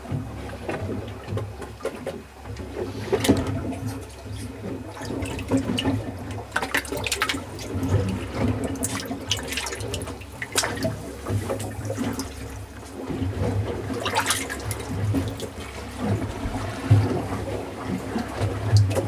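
Water splashing and rushing in irregular gushes over a steady low boat-engine hum.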